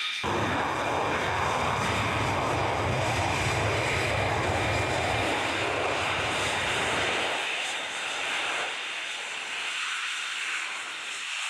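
Jet noise from a Lockheed Martin F-35A Lightning II's single Pratt & Whitney F135 turbofan on its takeoff run, starting abruptly with a heavy, deep rumble. About seven seconds in the low rumble falls away and a thinner hiss remains as the jet lifts off and climbs away.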